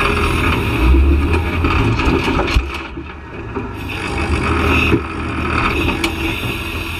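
Off-road rig's engine running under load on a rocky hill climb, with rock scraping and grinding against the vehicle and two sharp knocks, about two and a half and five seconds in.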